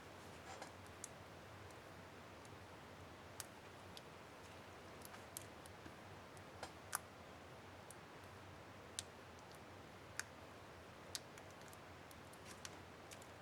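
Small, sharp plastic clicks at irregular intervals over a faint hiss: a laptop keyboard's Backspace keycap and its retainer clips being handled and snapped into place. The loudest click comes about halfway through.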